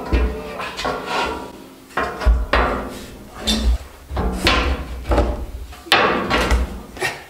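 A long steel flat bar clanking and scraping against the metal balusters of a spiral staircase as it is worked through them: a dozen or so irregular ringing metal knocks, each with a dull thud underneath.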